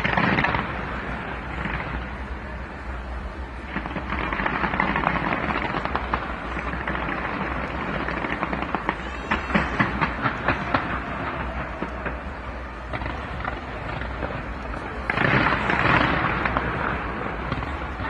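Fireworks bursting and crackling over a continuous rumbling wash, with a quick run of sharp cracks about nine to eleven seconds in and swells of noise near four and fifteen seconds.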